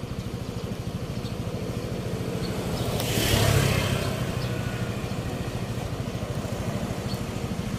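Motor scooter engine passing close by, loudest about three seconds in and then fading as it rides off, over a steady low hum of engines at the intersection.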